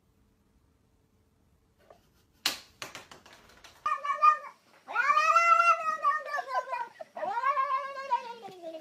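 Near silence, then a sharp click about two and a half seconds in, then a cat yowling in three drawn-out calls, each rising and then falling in pitch. The first call is short and the last trails off lower.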